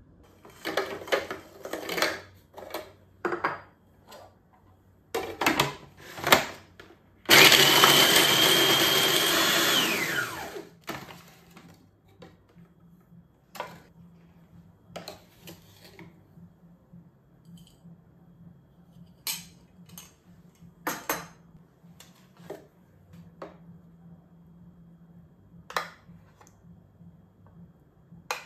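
Food processor motor running for about three seconds, then winding down with a falling whine, with light knocks and clicks of handling the bowl and lid before and after.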